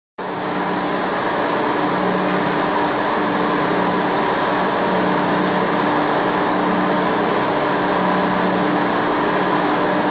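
Agitator of a concentrating kettle turning its stirring arm inside the vessel, its drive running with a steady mechanical hum. The sound starts suddenly just after the beginning and then holds unchanged.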